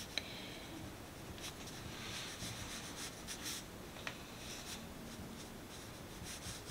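Faint soft brushing of a round paintbrush working gold watercolour paint on sketchbook paper, with a couple of small clicks.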